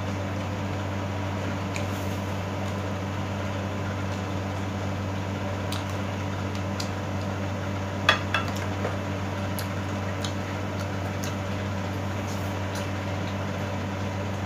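Spoon clinking against a ceramic bowl and plate during a meal, a scattering of short clicks with the loudest about eight seconds in, over a steady low hum.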